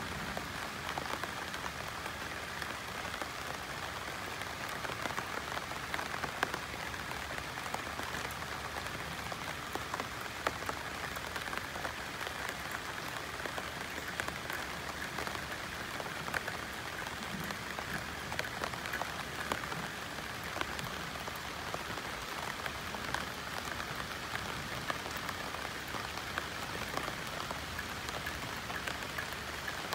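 Rain falling on banana leaves: a steady patter with many separate drops tapping on the broad leaves.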